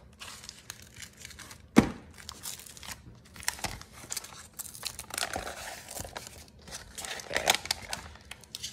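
A kraft cardboard mailer being pulled open by hand, its paper and tape crinkling and tearing in irregular crackly spells. A sharp click comes just under two seconds in.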